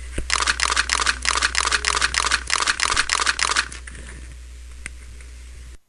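Cartoon gore sound effect: a quick run of crunching, tearing noises, about five a second for about three seconds, as a body is ripped apart.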